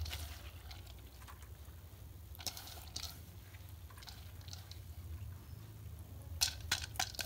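Soaked split moong and urad dal being tipped and pushed by hand from a plastic bowl into a steel mesh strainer: faint wet squishing and pattering, with a cluster of sharper clicks near the end. A steady low hum runs underneath.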